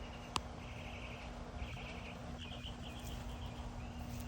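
A bird singing a string of short, fast trills, one after another, over a steady low hum and background rumble, with a single sharp click about half a second in.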